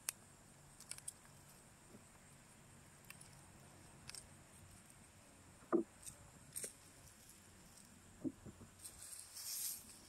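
Gloved hands handling freshly dug sweet potatoes: light clicks and rustles, a dull thump about six seconds in as tubers drop into the wheelbarrow, a softer thump later, then rustling through loose soil and dry leaves near the end as the digging starts again.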